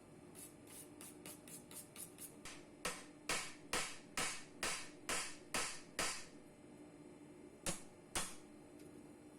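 Hammer blows on a chef-knife blank on an anvil while forging: a run of light, quick taps, then about eight heavy ringing blows at roughly two a second, then two more strikes near the end.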